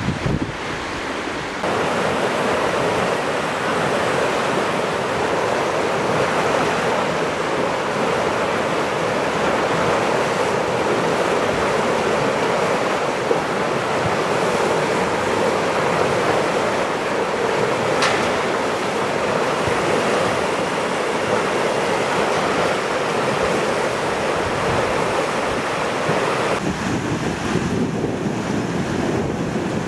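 Flood-swollen river, its fast muddy water rushing with a steady noise, with wind buffeting the microphone at the start. The rush thins out near the end.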